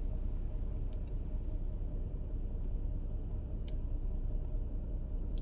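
Steady low rumble with a few faint clicks spaced a second or more apart, from buttons being pressed on a handheld scan tool.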